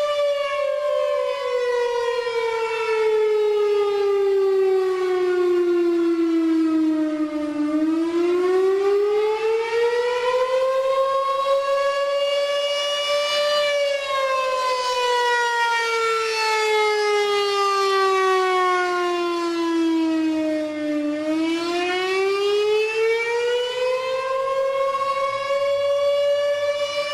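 Federal 500 electromechanical fire siren sounding the city fire department's up-and-down call signal, sounded here as a test. The pitch slowly falls over about seven seconds, then rises over about six, and this repeats twice.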